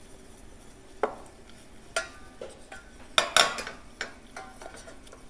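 Wooden spoon stirring melted butter and flour in a stainless steel saucepan, working them into a roux paste, with light scattered knocks of the spoon against the pan and a brief cluster of sharper clatters about three seconds in.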